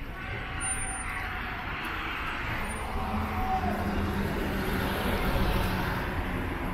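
Street traffic noise with a passing bus: a steady engine hum comes in about halfway through and grows louder over the rumble of the road.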